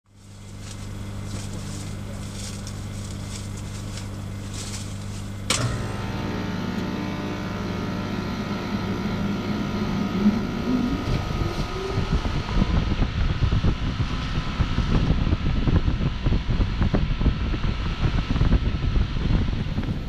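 Outdoor unit of a 2006 Trane XL16i heat pump starting up in heat mode. A steady low hum is followed by a sharp click about five and a half seconds in. The Alliance scroll compressor and fan motor then come up to speed, with a rising tone and a growing, fluttering rush of air from the fan.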